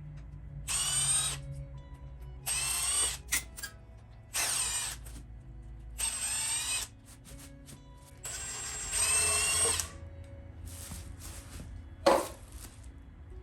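Impact wrench spinning out 10 mm bolts on a 5.3L LS engine, in five short whirring bursts of about a second each, with one brief sharp burst near the end.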